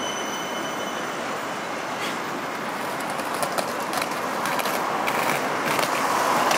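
A Helsinki Artic low-floor tram rolls to a stop and stands humming amid steady city traffic noise. From about the middle on comes a rattle of clicks, rising toward the end as a wheeled suitcase is pulled over the paving stones close by.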